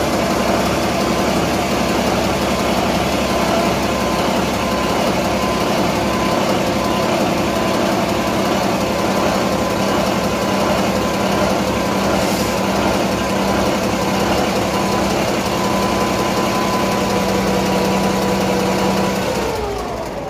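Ship's port main diesel engine running on a test run with its rocker covers off, a loud steady rhythmic clatter. Near the end its pitch falls and it quiets as it slows down.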